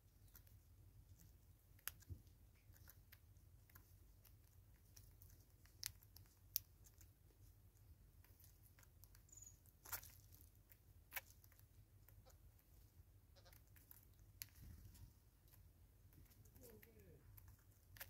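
Southern red-billed hornbills pecking at seed on a tree stump: scattered sharp taps and crunches of their bills striking the wood and grain, a dozen or so at irregular intervals over a faint background. Near the end, a short wavering animal call.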